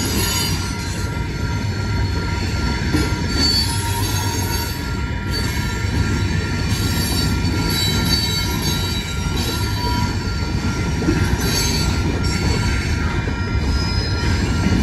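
Freight cars rolling through a grade crossing: a steady low rumble of wheels on rail, with brief high-pitched wheel squeals that come and go.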